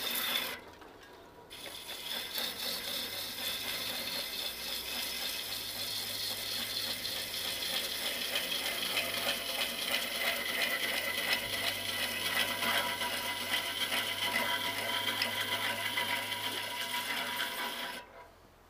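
Lathe gouge cutting into a large spinning wooden vessel blank, a steady scraping, hissing cut with the motor humming underneath. The cut breaks off briefly about a second in and resumes, and near the end the sound cuts off suddenly as the lathe stalls, which the turner thinks may come from overloading the motor.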